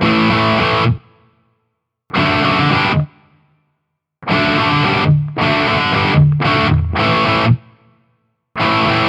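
Gibson Les Paul played straight into a Marshall JCM 800 2204 clone amp and a 4x12 cabinet, with no pedals or boost: overdriven power chords. There are two short chord stabs about a second apart, then a longer run of changing chords, each cut off sharply into silence. A slight reverb is added.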